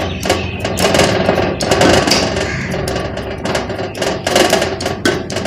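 Steel ladle scraping and knocking against a steel kadai as thick dal halwa is turned and pressed: a quick, irregular run of scrapes and clacks.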